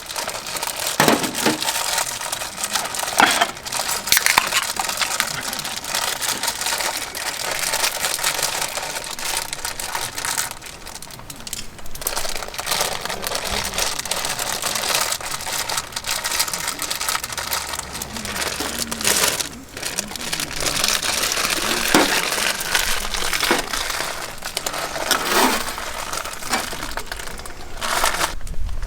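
Campfire crackling steadily, with scattered sharp pops.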